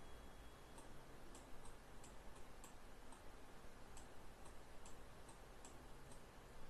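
Faint clicks of a computer mouse's left button, pressed and released a few times a second at an uneven pace while letter strokes are drawn, over low room hiss.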